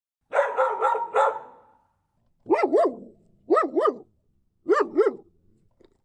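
Dog barking: a quick run of four barks, then three pairs of barks about a second apart.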